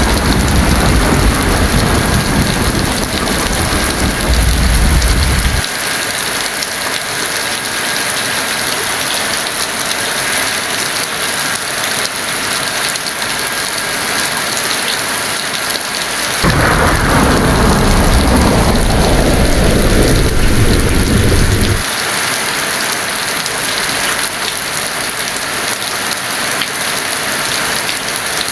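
Heavy rain falling steadily, with two rolls of thunder. One low rumble runs through the first five or so seconds. A second begins suddenly about sixteen seconds in, sliding down from a crack into a deep rumble. Both cut off abruptly.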